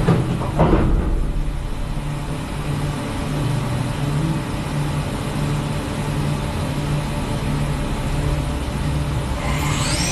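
A Mazak five-axis CNC milling machine running a cut on a metal part: a steady mechanical machining noise with a low hum that comes and goes. Near the end there is a rising whine.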